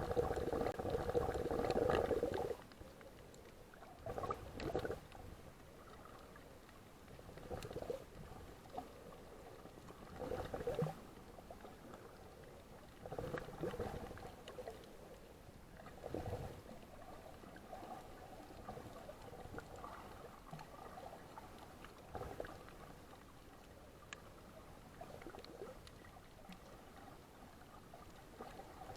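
Bubbling, gurgling water in regular bursts about every three seconds, the first one longest: the rhythm of a swimmer or snorkeller breathing out into the water near the camera.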